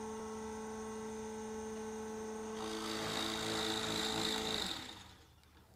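Nova Voyager DVR drill press motor running with a steady hum while the bit bores into a hardwood board, the cutting noise building over the next couple of seconds. About five seconds in the bit reaches its preset 7/16-inch depth and the machine's electronic depth stop cuts the motor, which fades out to quiet.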